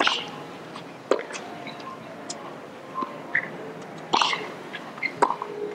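Tennis rally on a hardcourt: sharp pops of the ball off the racquets and the court about once a second, with short grunts on some shots, over a low crowd hum.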